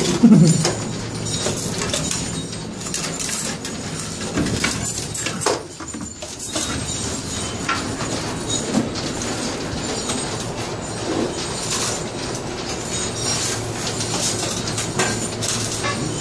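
Scrap iron scraping and clattering, with short squeals of metal on metal, over a steady mechanical din.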